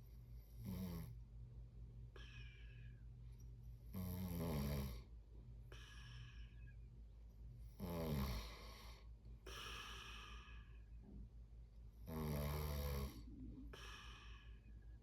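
Snoring in a slow, even rhythm: four loud snores about four seconds apart, each followed by a fainter, airy breath out, over a steady low hum.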